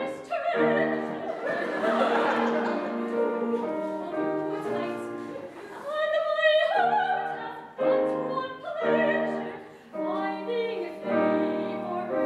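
Live operatic singing, sung in phrases with short breaks between them.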